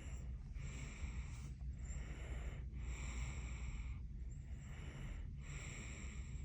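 Sleeping baby snoring: a steady run of noisy, hissy breaths, roughly one a second, over a constant low hum.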